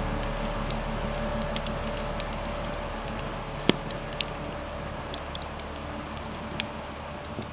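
Wood fire crackling, with scattered sharp pops over a steady hiss, one pop louder than the rest a little past halfway. The sound slowly fades down.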